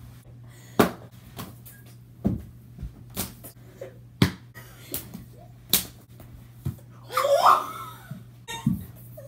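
Bodies thumping and slapping against a carpeted floor and each other during play wrestling: a string of sharp thuds about once a second. A burst of laughter comes about seven seconds in.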